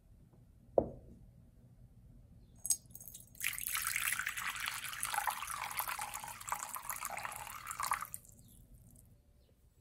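Warm water poured from a small ceramic jug onto a ceramic plate, a steady splashing pour of about four and a half seconds that stops cleanly. A single knock comes about a second in and a light clink just before the pour.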